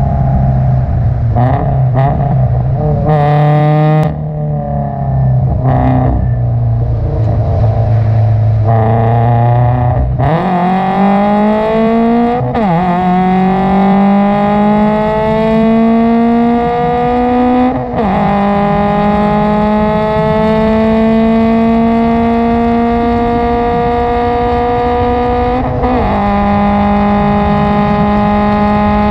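Subaru BRZ's 2.0-litre flat-four, fitted with an aftermarket header and catback exhaust, heard from inside the cabin. It runs at part throttle at first, then about ten seconds in goes to full throttle for the race start and pulls hard through the gears, its note rising steadily and dropping back at upshifts about 12, 18 and 26 seconds in.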